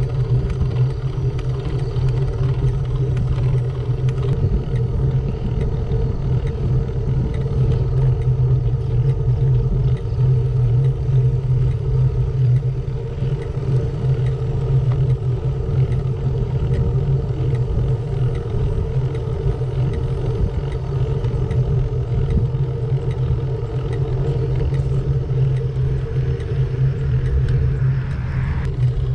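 Road bike riding along at a steady pace: wind rushing over the microphone and tyres rolling on asphalt, making an even rumble with a steady low hum.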